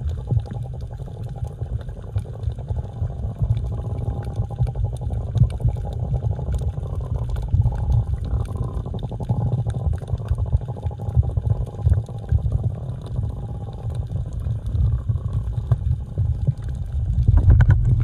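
Underwater ambience heard through a camera housing: a choppy low rumble of moving water, with a faint wavering hum higher up, growing louder near the end.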